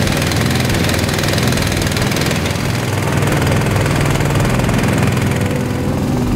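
Small engine of a skid-mounted firefighting pump unit running steadily, driving water through a hose onto a brush fire.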